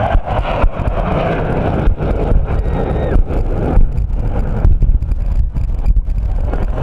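Black Hawk helicopter's engines and rotor running: a loud, steady rumble with uneven gusty dips and surges.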